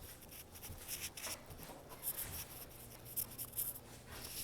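Irregular scraping and scuffing as a young puppy tugs and scrabbles at a toy, short scratchy rubs repeating every fraction of a second.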